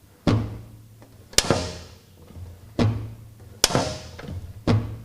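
Hinged lower cover of a Vaillant wall-mounted gas boiler being opened and shut repeatedly, each movement ending in a sharp clack with a brief low ring, about six times at uneven spacing. This is the abnormal noise the owner complains of; the dealer puts it down to the cover's metal snap catch and calls it normal for this model.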